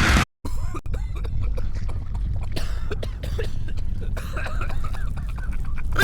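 Sick Sneezer animatronic playing its coughing sounds over a steady low rumble. The sound cuts out completely for a moment just after the start.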